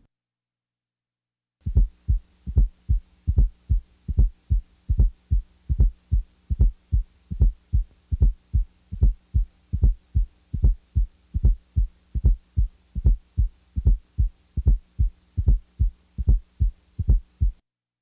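Recorded heart sounds as heard through a stethoscope: a regular run of short, low thuds, about two to three a second, over a faint steady hum. They start about a second and a half in and stop shortly before the end.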